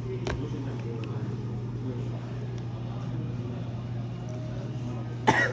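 A steady low hum with a faint murmur of voices, under small handling sounds of a pocket camera in its cardboard box: a light click just after the start and a sharper click with a brief high ring near the end.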